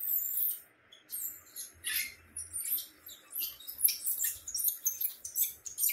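A small puppy giving quick, high-pitched squeaks, several a second at an uneven pace.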